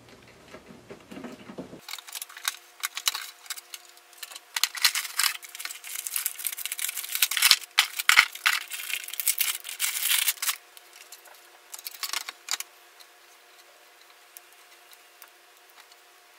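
Hands handling computer power supply cables, plastic connectors and the metal case while swapping a power supply: a run of clicks, rattles and rustling, busiest in the middle and thinning out after about twelve seconds.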